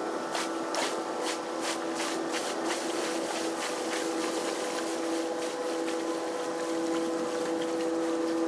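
Railroad swing bridge turning open: a steady machinery hum with two held tones, and a run of sharp clicks about three a second, strongest in the first few seconds.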